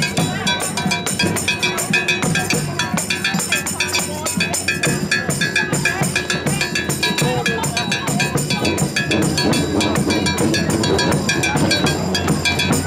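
Street-parade hand percussion of a Mardi Gras Indian procession, with rapid, steady, rhythmic hits and crowd voices mixed in.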